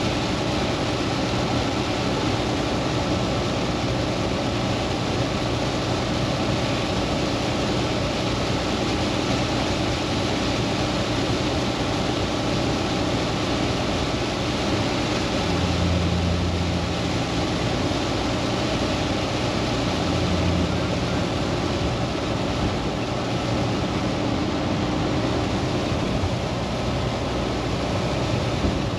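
Steady engine and wet-road tyre noise heard inside the cab of a Volvo semi-truck cruising on a rain-soaked highway. Two brief low hums rise above it about halfway through.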